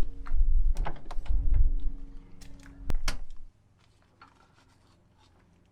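Parts being handled: low bumps and rumbles with scattered clicks, and one sharp click about three seconds in. After that it goes nearly quiet.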